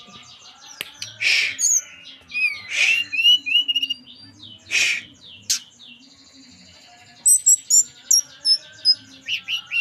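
Tledekan gunung songbird singing: short whistled and gliding notes with three loud harsh calls in the first half, then a quick run of short high notes near the end.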